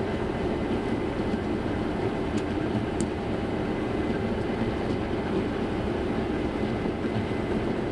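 Grain combine running under load, heard from inside the cab: a steady mechanical rumble, likely with the unloading auger emptying the grain tank into the grain cart.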